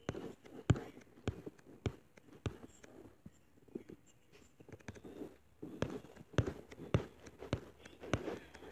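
Sharp taps and clicks close to the microphone, a few per second: evenly spaced at first, then more scattered. Faint, muffled murmuring lies between them.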